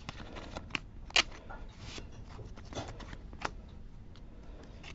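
Pokémon trading cards being handled: slid past one another and squared up into a stack, giving a string of light clicks and snaps, the sharpest about a second in.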